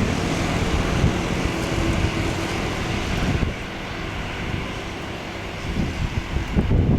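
Jet engine noise from an Airbus A330-243's Rolls-Royce Trent 700 turbofans during its takeoff, a steady roar that drops a little about halfway through, with wind buffeting the microphone.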